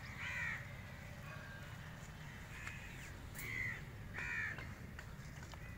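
Crows cawing, about four short caws spread over a few seconds, over a low steady rumble.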